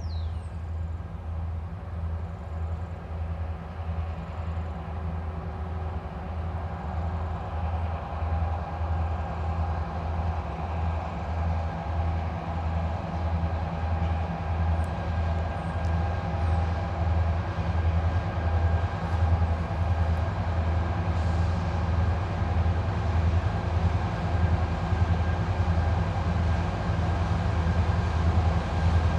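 TasRail diesel locomotives approaching unseen: a deep, evenly pulsing engine throb with steady tones above it, growing louder throughout.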